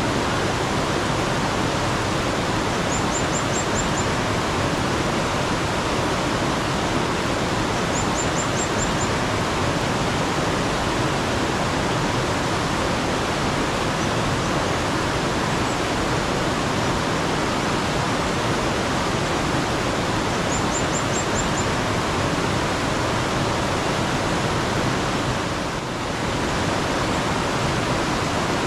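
Steady rush of flowing mountain stream water. A small bird adds three short runs of quick, very high chirps, each about five notes.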